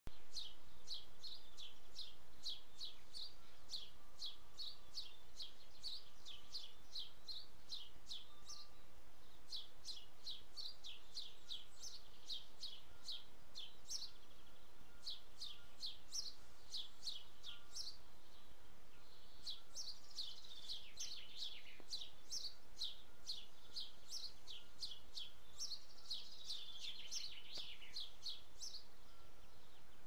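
Small songbirds chirping in a flowering tree: a steady run of short, high chirps at about two to three a second, broken twice in the second half by a longer, falling twitter, over a faint steady background hiss.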